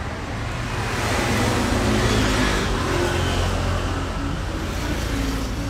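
A motor vehicle passing on a road, its noise swelling about a second in and fading away over the next few seconds, over a steady low rumble of traffic.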